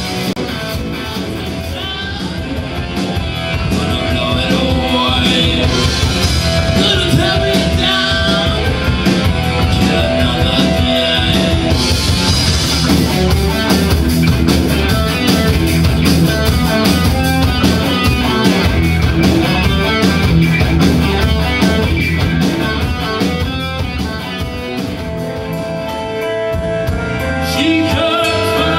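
Live rock band playing loudly: electric guitar, electric bass and drum kit.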